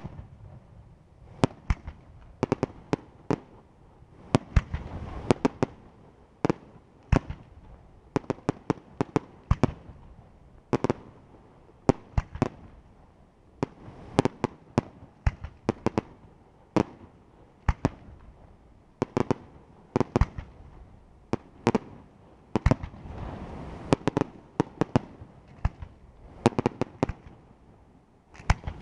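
Aerial firework shells bursting during a pyrotechnic display: many sharp bangs in irregular succession, at times several a second in clusters, with a low rumble between them.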